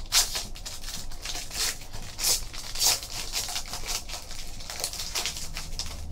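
Foil wrapper of a Panini Spectra football card pack being torn open and crinkled by hand: a run of sharp crackles, loudest just after the start and again around two and three seconds in.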